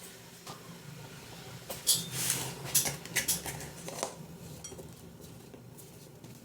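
A few short clinks and scrapes of cutlery against dishware, bunched together about two to four seconds in.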